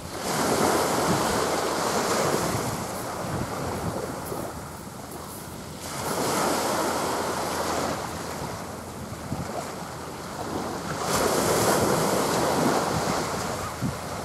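Waves washing on the shore mixed with wind buffeting the microphone, the noise swelling three times in surges a few seconds apart.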